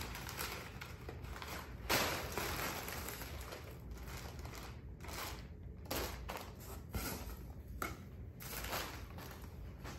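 Crumpled brown packing paper and then plastic air-pillow wrap being pulled out of a cardboard box and handled: an irregular rustling and crinkling with a few sharp crackles, the loudest about two seconds in.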